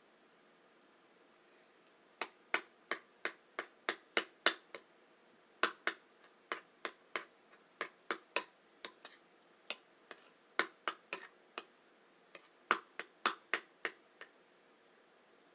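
A bowl being tapped with sharp, quick clicks, about three a second, in four runs broken by short pauses.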